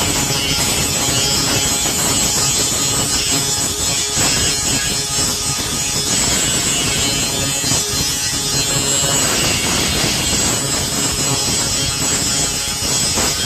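Power grinder grinding down weld beads on a steel lawn roller drum: a steady, loud, high-pitched grinding with slight dips as the disc bites and eases off the metal.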